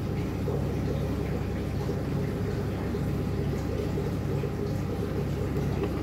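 Steady low hum of aquarium pumps and filters, with water bubbling and running.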